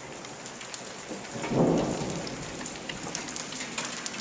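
Rain falling steadily with scattered drop ticks, and a short low rumble of thunder about a second and a half in.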